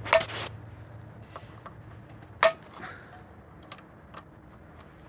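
Torque-limiting screwdriver clicking over at its set torque on the EV charger's terminal-block screws, a sign that each screw is already at its set torque. Two sharp clicks come about two seconds apart, each with a short ring, and a few faint ticks fall between them.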